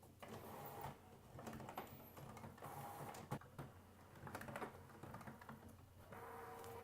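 HP inkjet printer mechanism, faint, whirring and clicking in about five short spells, with a steady motor whine in some of them, as it processes newly installed refilled cartridges.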